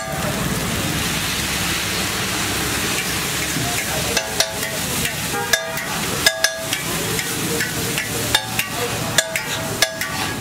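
Egg mixture sizzling on a hot flat griddle as a steel spatula stirs it. From about four seconds in, the spatula strikes the griddle plate again and again at an irregular pace, each clang ringing briefly.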